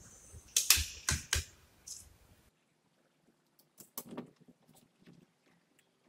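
Metallic clicks and clacks of a BRK Ghost PCP air rifle's side-lever action being worked to cock it and load the next pellet. A quick run of sharp clicks comes in the first second and a half, then a few softer ones around four seconds in.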